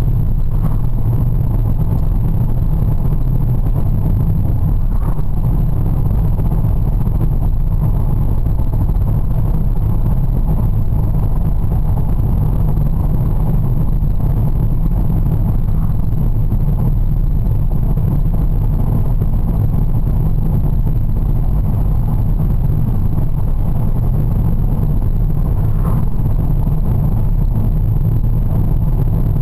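Steady low drone of a car driving along at a constant speed, heard from inside the cabin: road and engine rumble with no sudden changes.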